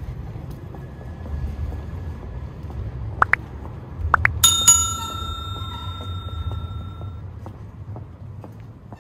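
A bicycle bell rung a few times in quick succession about three to four seconds in. The last ring is the loudest and fades over about two and a half seconds, over a low steady rumble.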